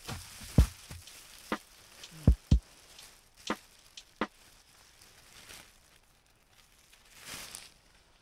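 Footsteps crunching and thumping on snow as someone moves about beside a tent being pitched: about six sharp, irregular thumps in the first half, then quieter, with a soft swish near the end.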